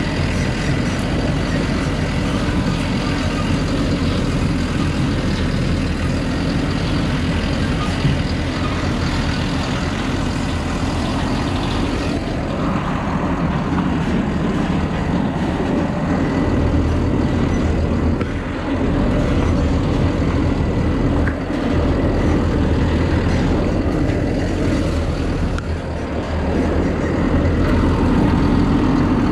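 Truck engine running steadily as the truck drives along a rough dirt track, heard from on top of the cab, with a few short knocks as it bounces.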